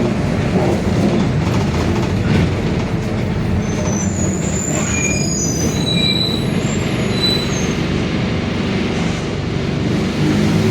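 Mercedes-Benz OF-1721 city bus running under way, heard on board: steady diesel engine and drivetrain noise with the differential droning. Several brief high-pitched squeals come about four to seven seconds in.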